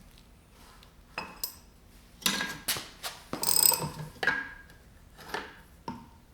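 Steel tools and engine parts clinking and knocking against each other: a string of sharp metallic clanks with a bright ring, irregularly spaced and loudest in the middle.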